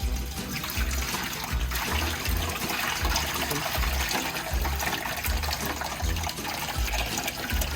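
Water splashing and trickling steadily into a small DIY tabletop waterfall, starting suddenly, over background music with a steady low beat.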